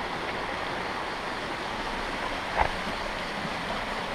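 Steady rushing of a waterfall, with a single brief knock about two and a half seconds in.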